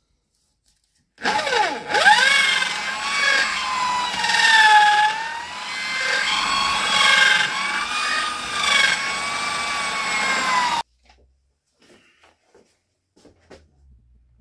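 Electric drill boring into the soft centre pith of a deer antler base. About a second in the motor spins up with a rising whine, then runs with its pitch wavering as it works, and it stops abruptly near the end.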